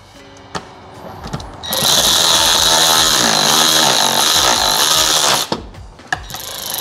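Ryobi cordless ratchet running bolts down into a VANOS unit housing: a steady whir for about three and a half seconds, a short stop, then the ratchet starting again near the end.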